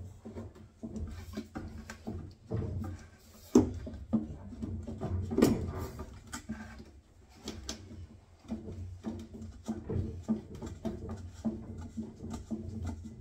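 Pipe slice (rotary pipe cutter) being worked around an old copper pipe to cut it out: a string of irregular clicks and knocks with low handling rumble.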